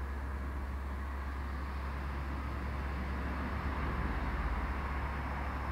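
Steady low background hum with a faint even hiss: room tone, with no distinct event.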